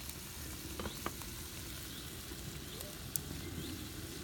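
Green beans and onion sizzling steadily in a frying pan over a wood fire, with a few sharp clicks about a second in and again near the end.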